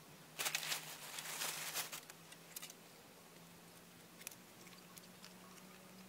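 Wooden-based wire rat traps being handled and set down on grass: a burst of rustling and light rattling for about a second and a half, then a few scattered clicks. A faint steady low hum runs underneath.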